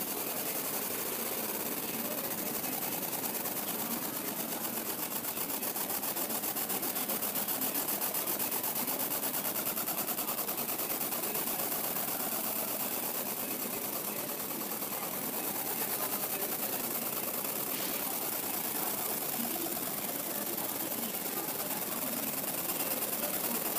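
Laser engraving machine marking a metal disc: a steady, rapid buzzing hiss as the beam works across the metal, with no break.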